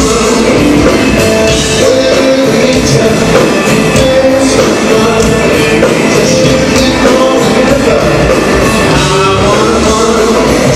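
Loud blues-rock band music with a steady beat, playing without a break.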